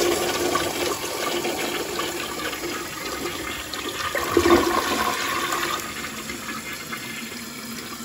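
A toilet flushing after its tank was rebuilt with a Fluidmaster all-in-one kit: water rushing and swirling down the bowl, swelling again midway and easing off toward the end.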